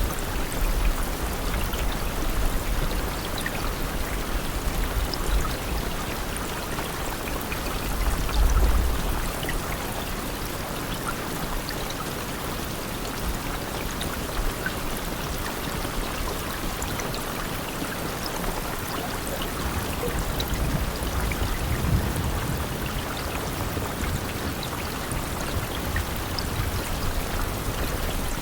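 Steady rain with water running and scattered drops ticking. A low rumble swells briefly about eight seconds in and again around twenty-two seconds.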